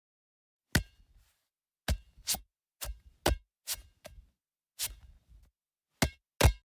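A series of about ten sharp taps or knocks at uneven intervals, some coming in quick pairs, with dead silence between them.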